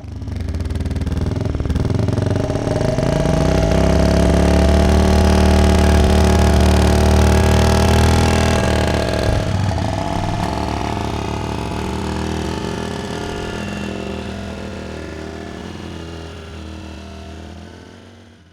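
Motorcycle engine running steadily. Its pitch rises a little over the first few seconds, shifts lower about halfway through, and the sound then slowly fades out near the end.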